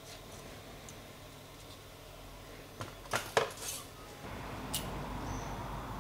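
Small metal clicks and light scraping as a thin screwdriver or pick works against the metal parts of an electronic distributor being taken apart. The sound is faint at first, then a quick cluster of sharp clicks comes about three seconds in, followed by a single tick near the end.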